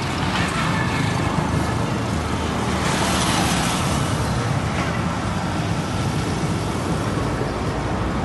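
Road traffic running along a busy street, with a vehicle passing close about three seconds in.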